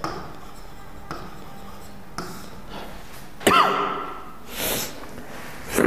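Quiet room hiss with a couple of faint clicks, then a short vocal sound from a man about three and a half seconds in, falling in pitch, followed by breathy sniffs or exhales.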